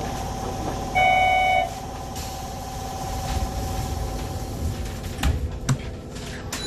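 A short electronic buzzer sounds once, about a second in, lasting under a second, over a steady hum. A few clunks follow near the end.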